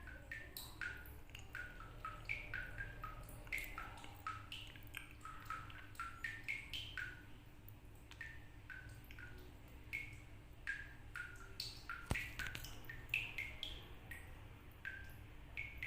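Water dripping from a tap: an irregular patter of small pitched plinks at varied pitches, a few each second, like a little tune, over a faint low hum. A sharper click about twelve seconds in.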